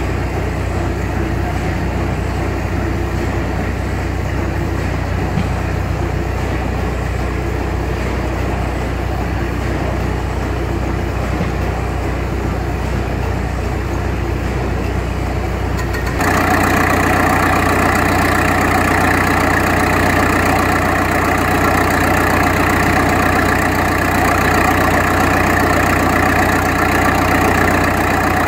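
A 1917 600-horsepower Snow gas compressing engine running steadily with a low, even hum as its huge flywheel turns. About halfway through, the sound cuts suddenly to a louder, brighter steady drone from an old Gardner-Denver portable air compressor, the machine that supplies the starting air for the Snow engine.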